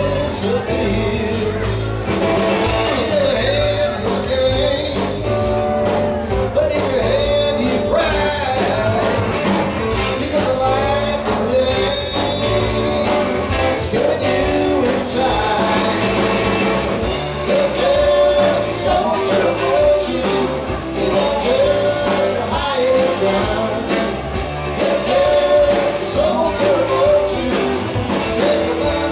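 Live rock band playing: a male voice sings over electric guitar, electric bass and drum kit.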